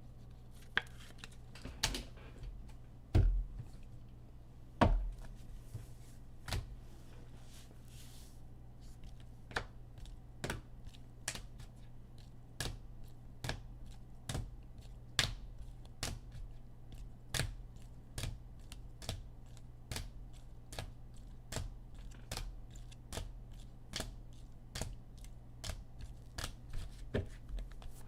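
Sharp plastic clicks and taps, about one or two a second, from sports cards in hard holders being handled and set down on a table, over a steady low hum.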